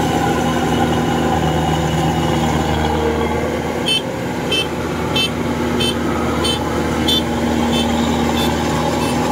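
Two Kubota DC-105X rice combine harvesters running steadily while cutting rice, a continuous engine drone. About four seconds in, a short, high beep starts repeating about every two-thirds of a second.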